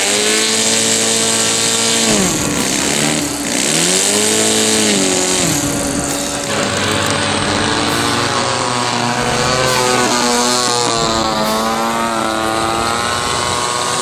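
Large RC model biplane engine running, revved up and down twice. About six and a half seconds in, a different model plane's engine takes over, running with a wavering pitch as it taxis.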